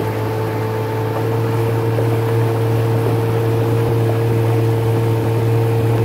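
Small boat's motor running steadily under way, a constant drone with a steady hiss over it. It gets slightly louder about a second and a half in.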